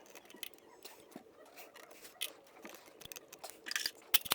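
Irregular light clicks, taps and rustles of a part and its hardware being handled and fitted by hand. There is a short flurry of clicks near the end, then one sharp click.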